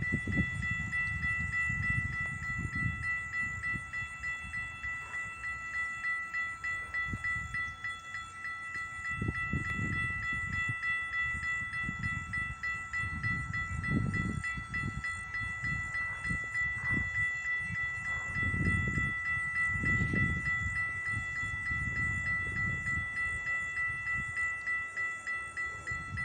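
Railroad crossing warning bell ringing steadily at an even rhythm, over irregular low rumbling.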